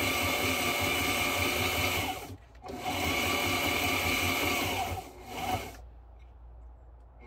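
Sewing machine stitching around the edge of a textured-vinyl piece in steady runs. It stops briefly about two seconds in, runs again, then stops near the five-second mark, with one short burst of stitching before it falls quiet.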